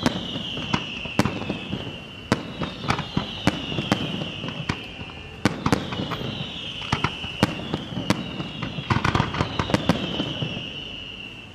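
Daytime fireworks going off: irregular sharp bangs of bursting shells, with a quick run of cracks about nine seconds in. Over them a high whistle falls in pitch and starts again every couple of seconds.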